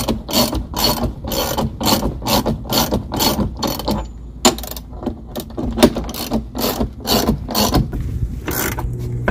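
Hand ratchet wrench clicking in quick, evenly repeated strokes as it turns the puller that presses a cutless bearing out of a boat's propeller shaft strut, with a short pause about four seconds in.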